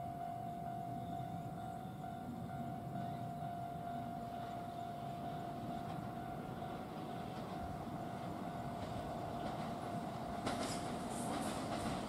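Kintetsu 80000 series "Hinotori" limited express approaching on the track, a steady distant rumble that grows. About ten seconds in, crackling wheel-and-rail clatter starts.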